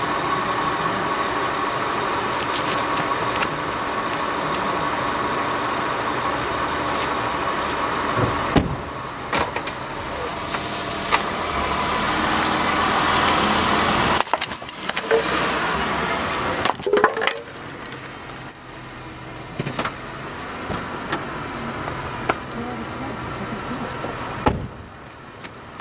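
A car's engine running close by, growing louder through the first half and then dropping off suddenly, followed by scattered sharp clicks and knocks as the car rolls over the pavement.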